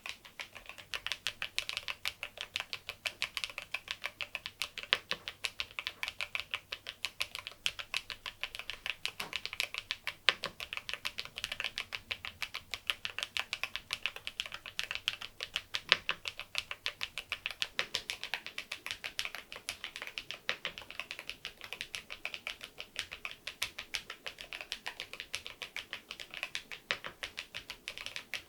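Continuous fast typing on a KEYSME AIM04 HE aluminium keyboard with magnetic Hall-effect switches, fitted with a swapped set of keycaps: a dense, steady stream of keystroke clicks.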